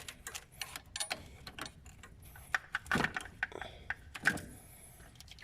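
10 mm wrench working the stiff positive terminal clamp nut on a car battery: a run of small, irregular metallic clicks and ticks, with two louder knocks about three and four seconds in.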